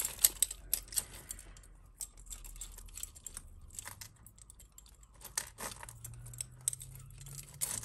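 Costume jewellery clinking and jangling as hands sort through a pile of it and pick apart tangled chain: scattered light metal clicks.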